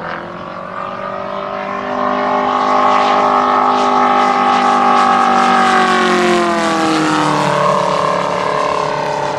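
A large-scale RC model airplane's petrol radial engine running hard during a fly-by, getting louder about two seconds in. Its pitch drops near the end as it passes.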